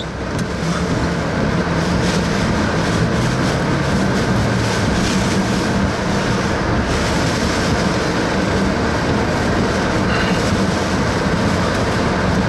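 Steady road and engine noise inside a moving car's cabin, with a low steady hum under it.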